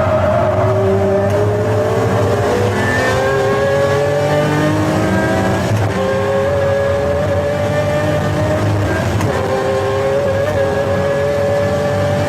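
Pagani Zonda F Clubsport's V12 under hard acceleration at steady loudness, its pitch climbing steadily and then resetting at gear changes, several times over.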